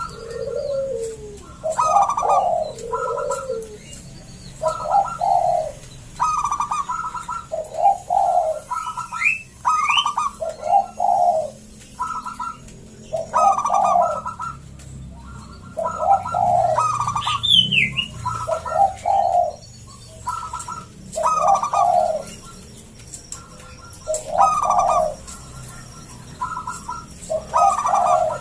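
Zebra dove (perkutut) with a thick, full voice cooing over and over, its multi-note song phrases following one another every second or two. A few thin, high chirps from another bird come in twice.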